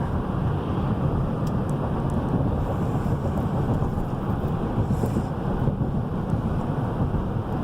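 Steady road and tyre noise with the engine at cruise, heard inside the cabin of a 2017 GMC Yukon XL driving on a straight road, with no squeaks or rattles standing out.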